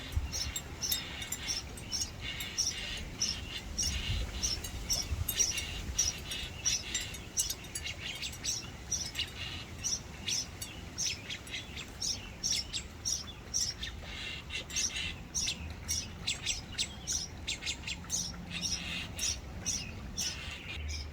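Young birds chirping over and over as their mother comes to feed them: short high chirps, about two or three a second.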